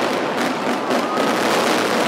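Dense, continuous barrage of mascletà firecrackers (masclets), the bangs packed so close that they run together into one steady, loud crackle.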